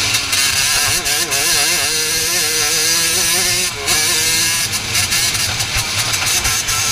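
Racing kart engine running hard, heard close up from a camera mounted on the kart as it laps. The engine note wavers up and down and dips briefly about four seconds in, then picks back up.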